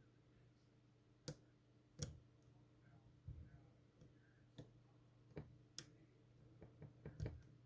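Lock pick and tension wrench working the pin stacks of a Master Lock M930 padlock during single-pin picking: faint, scattered metallic clicks, about ten in all, bunching together near the end.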